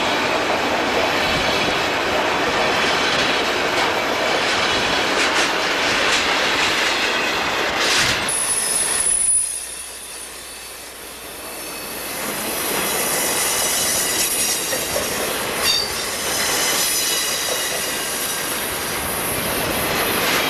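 Santa Fe freight train passing close by, its cars and wheels running noisily on the rails. About nine seconds in, the sound cuts to a quieter, more distant train that grows louder again, with faint high wheel squeal.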